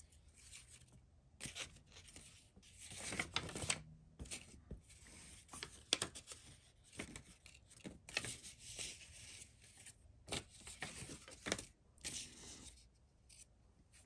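Faint handling noise of a large Victorinox Swiss Champ XXL multi-tool turned over in the hands: irregular light rubs, scrapes and small clicks of fingers and folded metal tools.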